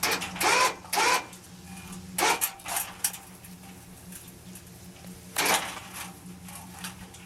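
Metal clanks and knocks as steel tower sections are worked into place, a few sharp hits spread over the seconds, over a steady low hum.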